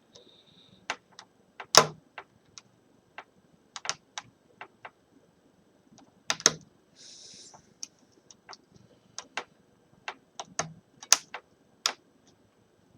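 Scattered small clicks and taps from hand tools and small screws being worked out of a laptop screen's plastic lid, irregular with a few louder knocks, and a brief scrape about seven seconds in.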